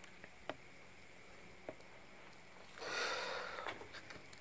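Quiet room noise with two faint clicks, then about three seconds in a single breath out of about a second close to the microphone.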